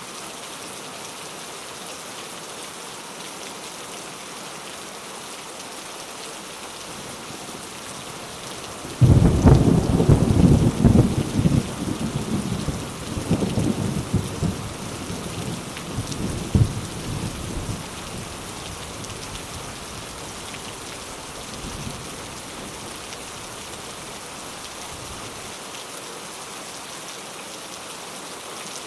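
Steady rain falling, with a sudden thunderclap about a third of the way in that rumbles on and fades over several seconds, then a faint distant rumble later.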